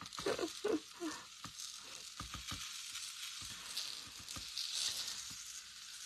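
Tiny beads pouring from a tall, skinny jar onto a card in a plastic tray: a faint, steady hiss of beads pattering and scattering, with a few light clicks about two seconds in.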